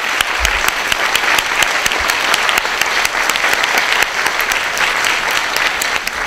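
Audience applauding steadily, a dense patter of many hands clapping at once.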